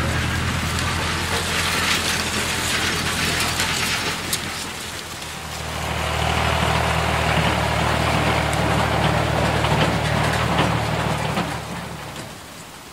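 Tractor engine running with a steady low hum and a hissing rattle over it, louder again from about six seconds in and fading away shortly before the end.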